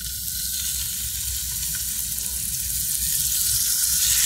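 Raw chicken breasts sizzling as they are laid into a skillet of hot oil, the sizzle growing louder as more pieces go in.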